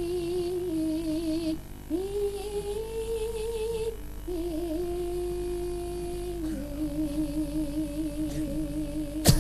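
A female sinden singing a slow Javanese vocal line into a microphone: four long held phrases with a wavering vibrato and slides between notes. A sharp knock comes near the end.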